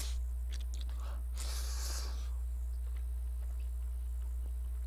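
A mouthful of Chapagetti black-bean-sauce noodles slurped about a second and a half in, then chewed with small wet mouth clicks, over a steady low electrical hum.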